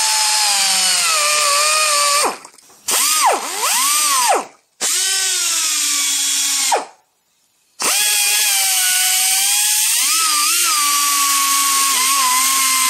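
Pneumatic die grinder with a carbide burr grinding out a bolt hole in a cast steering part: a high whine that sags and swings in pitch as the burr bites. It runs in several bursts with short stops between.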